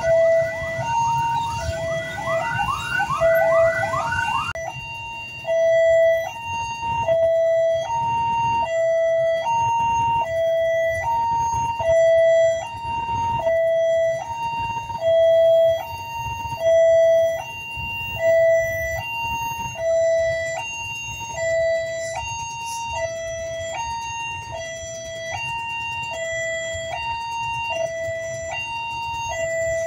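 Electronic level-crossing warning alarm sounding, two tones alternating high and low, about one change every three-quarters of a second. For the first four seconds or so it is mixed with the noise of freight wagons rolling past, with repeated rising wheel squeals, which stop suddenly.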